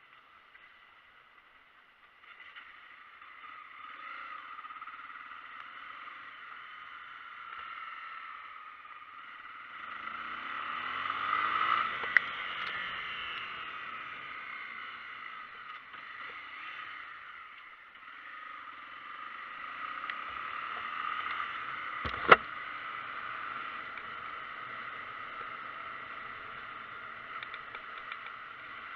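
Vehicle driving on a wet, potholed road: a steady rushing noise that swells twice, with two sharp knocks about ten seconds apart, typical of wheels dropping into potholes.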